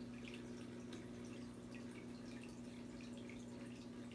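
Aquarium filter running: water trickling and dripping in a patter of small ticks, over a steady low hum.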